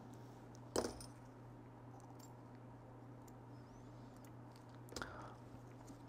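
Faint small clicks of a precision screwdriver and tiny screws being handled: a short click about a second in and a softer one about five seconds in, over a steady low hum.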